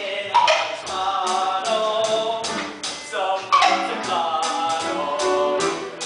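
Live musical-theatre song: singing over a band accompaniment with a steady percussive beat.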